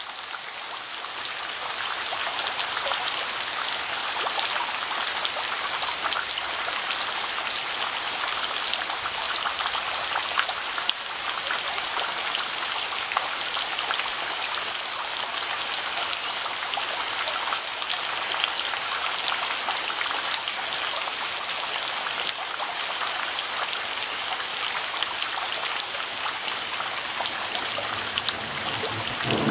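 Steady rain falling, a dense hiss with many separate drops heard striking, rising in level over the first couple of seconds and then holding steady.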